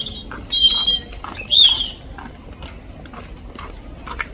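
European robin calling: three short, high calls in the first two seconds, the middle one a harsh doubled note and the last a quick rise and fall in pitch. A fainter, steady ticking runs underneath.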